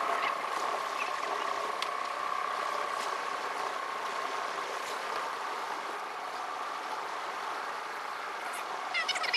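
Car driving, heard from inside the cabin, with the sound sped up about four times: steady road and engine noise with a high hum that fades after about six seconds. Just before the end comes a short burst of high, warbling sound.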